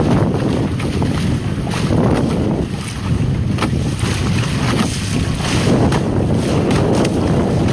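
Wind buffeting the microphone over the rush of water along a Nacra 20 catamaran's hull under sail, with frequent short splashes as the hull throws spray.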